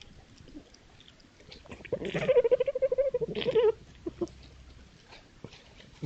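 Red fox giving one long, fluttering, wavering cry of about a second and a half, starting about two seconds in and dipping in pitch at the end.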